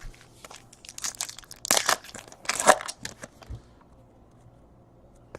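Crinkling and crackling of plastic or foil packaging being handled. It comes as a cluster of crackles, loudest in two bursts about two and two-and-a-half seconds in.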